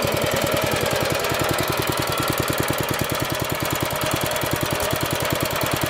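Go-kart's 6.5 hp single-cylinder four-stroke petrol engine idling steadily, an even, rapid beat of about a dozen firing pulses a second.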